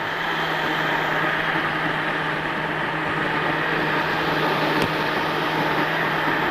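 Countertop blender motor running steadily, puréeing cooked split fava beans and peas into a thick green soup.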